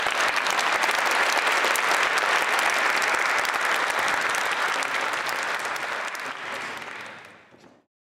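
Audience applauding, a dense steady clatter of many hands clapping. It dies away in the last second or so, then stops abruptly.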